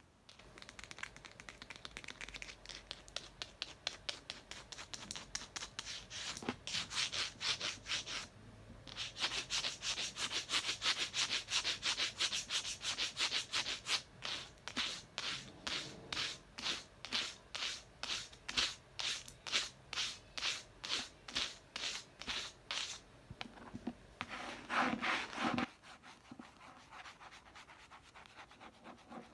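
Rapid scratching on a book, in quick back-and-forth strokes about three a second, with a brief pause about a third of the way in and a denser flurry near the end before it goes quieter.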